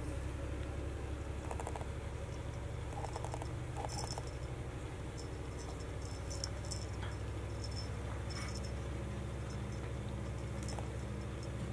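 Kitten playing with a feather wand toy: light, scattered rustles and clicks as it bats and bites the feathers. A steady low hum runs underneath.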